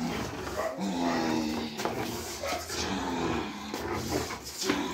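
A bandog growling low in several long stretches while it grips and tugs a plastic-wrapped bite pillow, with the plastic crinkling under its teeth.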